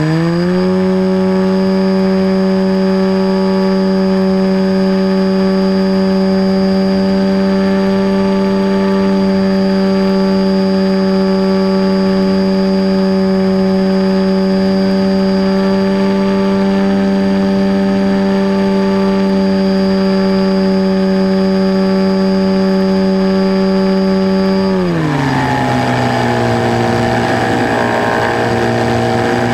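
The FPV glider's onboard electric motor and propeller, heard from the plane itself: it spools up at the start, runs at a steady high pitch under power during the climb, then is throttled back about 25 seconds in and drops to a lower steady hum.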